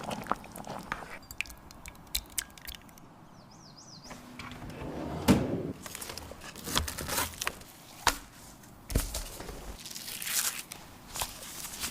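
Scattered clicks, taps and knocks of kitchen utensils and cookware being handled during baking, with a louder knock about five seconds in and a dull thud near nine seconds.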